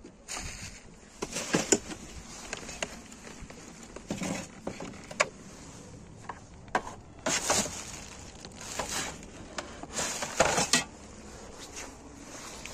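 Rubbish being rummaged in a dumpster: plastic bin bags rustling and items knocking and clattering as they are shifted, in irregular bursts with short clicks between them.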